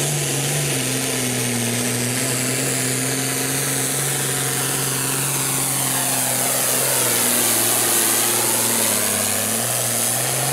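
International Harvester 1066 hot farm pulling tractor's turbocharged six-cylinder diesel running wide open under heavy load as it drags a weight-transfer sled. The engine holds a steady pitch that sags slightly near the end of the pull.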